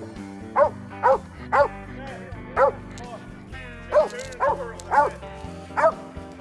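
Hunting dog barking in steady, evenly spaced chop barks, about two a second, with a short pause in the middle: a dog working game it has found in a deadfall.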